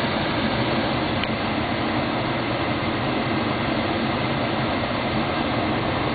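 Steady, even rushing noise inside a Volkswagen Passat's cabin.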